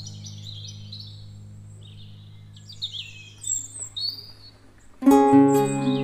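Birds chirping over a low, held music chord that slowly fades. About five seconds in, loud music of plucked-string notes comes in.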